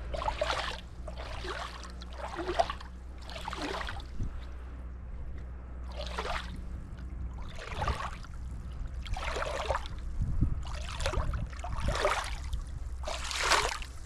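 Walking footsteps, a short swishing crunch about once a second with a pause partway through, over a steady low rumble.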